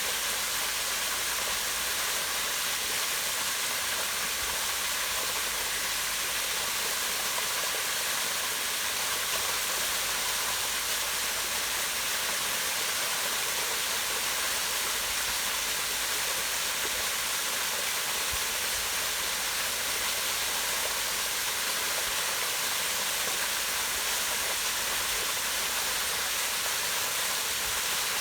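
Small waterfall pouring down rock into a pond: a steady, even rush of falling and splashing water.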